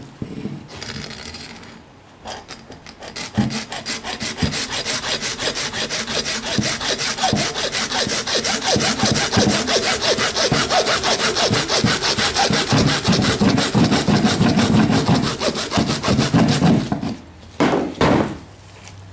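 Hand hacksaw cutting through the plastic handle of a cobweb duster to shorten it, in quick, even back-and-forth strokes that stop near the end.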